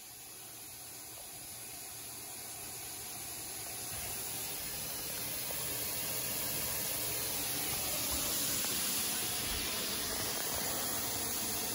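Steam hissing from a clothes iron pressed onto a damp towel over carpet, the heat-transfer step that lifts a stain's residue into the towel. The hiss is steady and grows slowly louder over the first several seconds.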